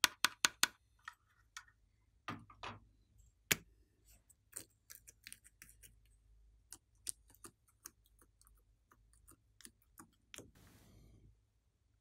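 Crisp clicks and crackles of slime and foam-bead toppings being handled: a quick run of four at the start, then scattered single clicks, and a short hiss near the end.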